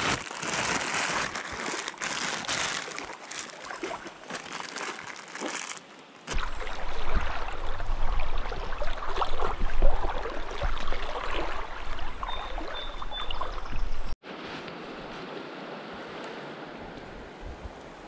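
River water sloshing and splashing as someone wades through it. There are many small splashes, with a low rumble under the middle stretch. The sound drops to a quieter, steady flow after a sudden cut near the end.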